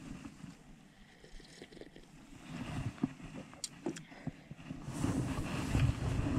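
Low rumble of wind and handling on the camera microphone, with a few sharp clicks about halfway through. The rumble grows louder in the last second or so.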